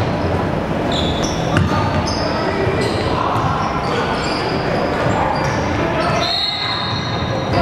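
Basketball game play in a gym: a ball bouncing on the hardwood court with sharp thuds now and then, brief high-pitched sneaker squeaks, and players' and spectators' voices echoing around the hall.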